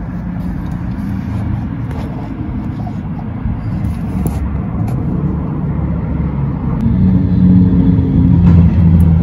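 A car engine running with a steady low rumble that grows louder toward the end, with a few faint clicks from the plastic connector of the EGR control solenoid being unplugged and plugged back in.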